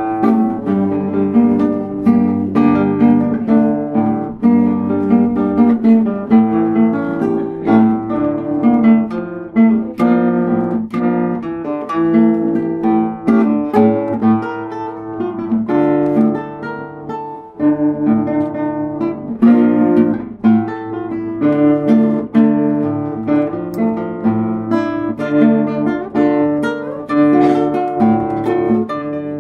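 Classical guitar playing an enka tune, a plucked melody over bass notes.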